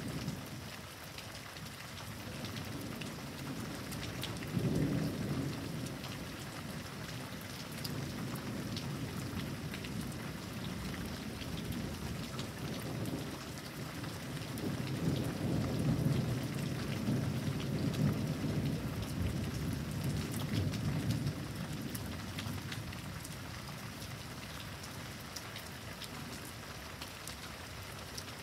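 Heavy thunderstorm rain: a steady hiss with many sharp drop impacts close by. Thunder rumbles low, briefly about five seconds in, then in a longer rolling rumble through the middle.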